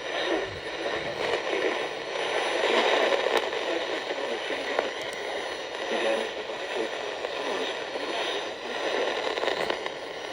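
Crackling static from a weather radio receiver, a steady narrow-band hiss with a few sharp clicks, where the broadcast voice reading a thunderstorm warning drops out under a weak signal.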